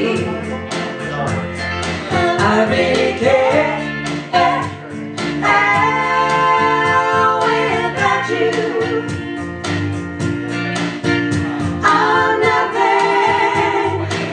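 Three women singing a 1960s-style doo-wop song in close three-part harmony, with long held notes over instrumental backing that keeps a steady beat.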